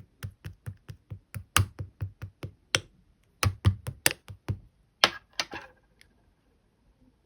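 Red clear slime being poked and pressed by hand, giving a quick series of sharp clicky pops, about four a second, then a short crackling squish around five seconds in.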